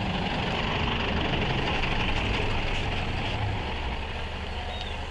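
Bus engine running at low revs, a steady low hum with road noise that eases off about three and a half seconds in.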